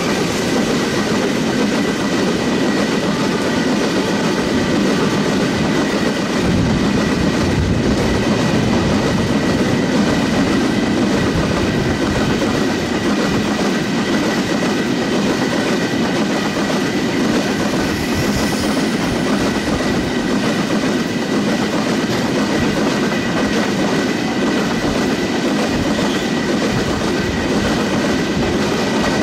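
Bogie oil tank wagons of a freight train rolling past at speed: a loud, steady rumble of steel wheels running on the rails, with a thin, steady high ring over it.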